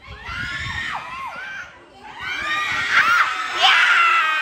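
Crowd of young spectators shouting and screaming over a football attack on goal. After a short lull about two seconds in, the shouting rises into loud, high-pitched excited screams.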